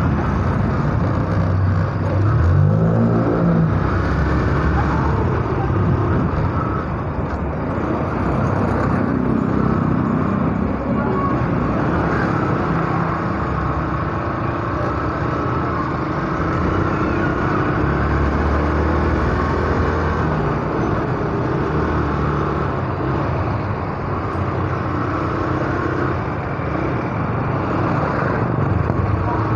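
Yamaha SZ single-cylinder motorcycle engine running under way in traffic, rising in pitch as it accelerates about two to three seconds in, with rushing wind on the microphone.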